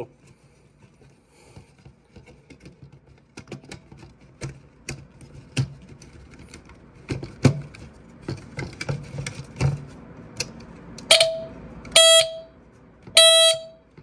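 Scattered handling clicks and knocks on a smoke alarm, then its horn sounds three short blasts near the end, each on the same high steady note. The last blast is the longest, at under a second.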